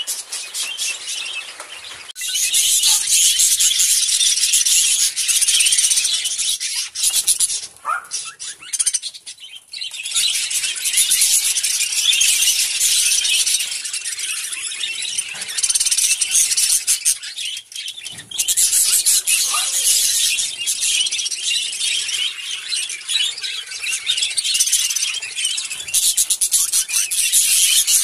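A large flock of budgerigars chattering together: dense, scratchy, high chirping and warbling that drops back briefly a few times and then swells again.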